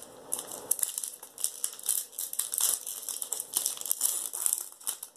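Foil wrapper of a Pokémon Champion's Path booster pack crinkling and tearing as it is ripped open by hand, a quick irregular run of sharp crackles.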